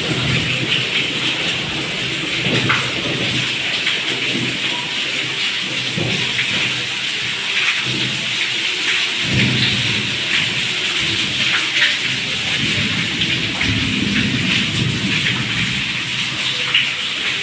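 Heavy rain pouring down steadily, with uneven low rumbles underneath.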